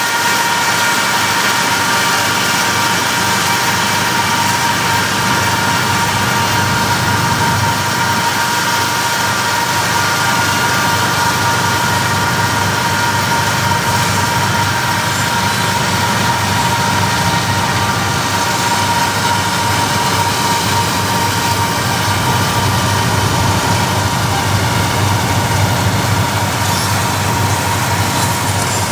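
Diesel-electric locomotives of a loaded coal train running steadily under power, heard from a vehicle pacing the train: a low engine drone with a steady high whine over it.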